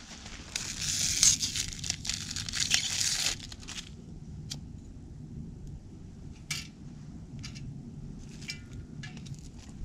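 Crunching footsteps in snow and rustling handling of dry tinder for about the first three seconds. Then it goes quieter, with a few scattered small clicks and crackles as the tinder in a wood-burning camp stove is lit.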